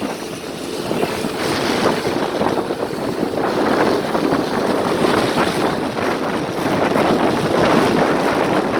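Engine running through a 'ngorok' aftermarket exhaust: a loud, rough, fluttering rumble, the 'snoring' exhaust note, swelling a little over the first couple of seconds and then holding steady.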